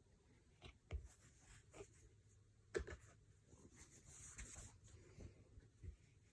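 Faint handling sounds: a few soft knocks and light rustling as fabric mini bolts on corrugated plastic cores are stacked, the sharpest knock a little under three seconds in.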